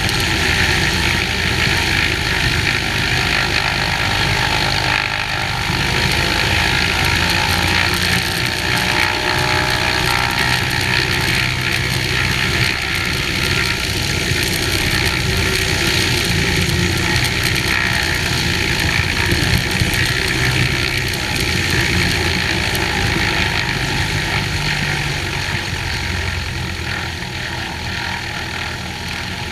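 Cessna 182H's six-cylinder Continental O-470 engine and propeller running steadily, with heavy wind rush over an outside-mounted camera. The level eases slightly near the end.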